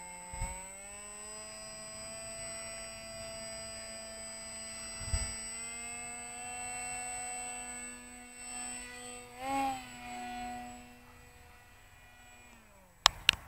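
Small electric brushless motor and propeller of an RC flying wing whining at a steady pitch, rising a little at first, then winding down and stopping near the end. Two sharp clicks follow.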